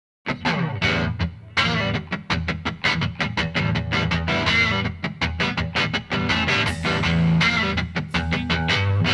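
Background rock music with distorted electric guitar and a steady beat, starting abruptly after a brief silence.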